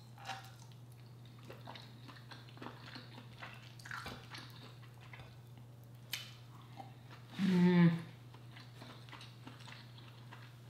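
Close-miked mouth sounds of a person eating deshelled king crab meat: soft bites, chewing and small lip clicks. About three-quarters of the way through comes a short hummed vocal sound, the loudest moment.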